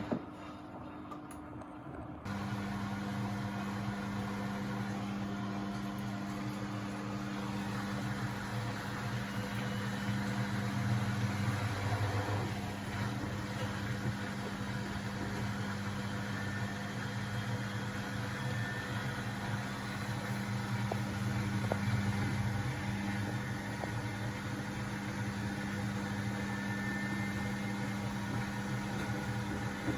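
Beko WMB71642W washing machine going into its final intermediate spin: after a brief quieter gap, a steady machine hum starts abruptly about two seconds in and runs on as the drum works up toward 1000 rpm.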